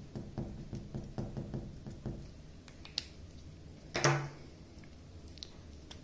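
Felt-tip marker tapping dots onto a paper fin on a wooden table, several quick taps a second for about two seconds. A small click follows about three seconds in, then a single louder knock on the wooden table about a second later.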